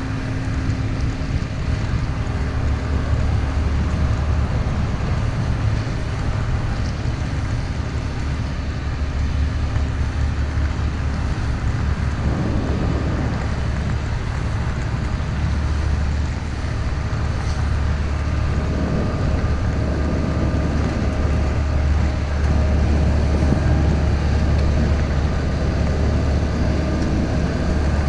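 Steady low rumble of noise inside a Boeing 737-800 airliner cabin, from the engines and airflow, growing a little louder about two-thirds through.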